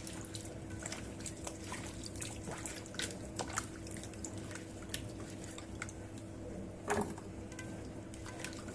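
Freshly rinsed, wet quince slices being put into a wide pan: scattered small clicks and drips of water, with one louder knock about seven seconds in.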